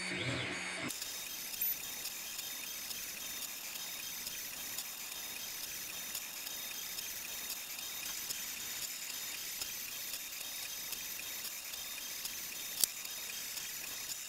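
Monoprice Select Mini 3D printer running a print: a steady mechanical whir with faint ticking from its moving parts, and one sharp click near the end.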